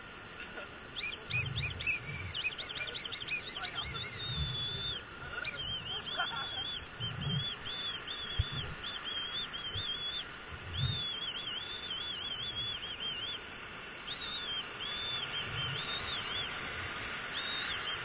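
White-water river rapids rushing steadily around an inflatable raft, with a high, warbling whistle-like call repeating rapidly through most of it and a few low rumbles now and then.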